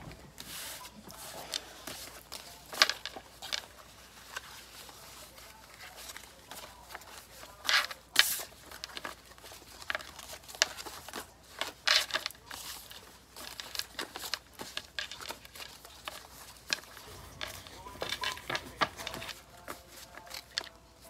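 Stack of paper name slips being shuffled by hand: irregular rustling and flicking of paper, with a few louder flutters along the way.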